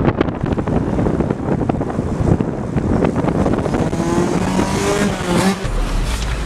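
Car driving at speed: steady road and wind noise with engine sound and small rattles, plus a few short pitched tones about four to five seconds in.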